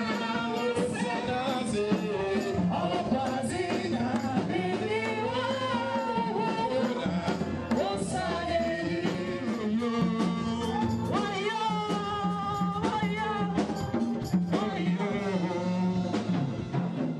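A praise song: voices singing over instrumental accompaniment with a steady bass and regular percussive hits.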